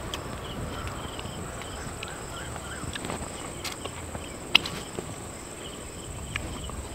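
Insects trilling in the open: a steady high-pitched drone with short chirps repeating every fraction of a second. A few faint clicks, and one sharp click about four and a half seconds in.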